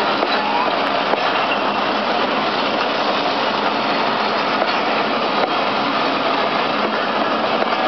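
Passenger coaches of a departing express rolling past close by: a steady rumble and rattle of steel wheels on the rails, with faint irregular knocks.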